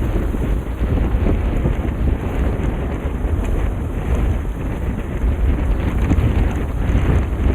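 Strong cyclone wind buffeting the microphone: a loud, gusting rumble of wind noise.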